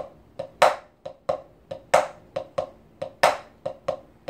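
A single drumstick playing a shuffle on a practice pad: soft tap notes in a swung rhythm, with a loud accented backbeat stroke about every 1.3 seconds.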